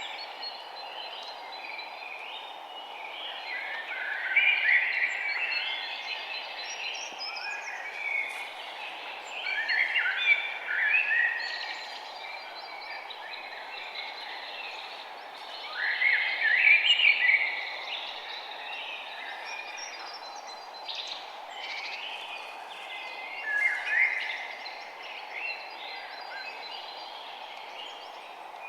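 Songbirds singing outdoors: short bursts of chirping, warbling phrases that come roughly every six seconds, with quieter calls between, over a steady low background hiss.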